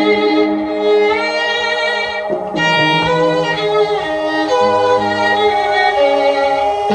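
Violin-led music played through a portable Bluetooth speaker in a sound test: held bowed notes that change every half second to a second.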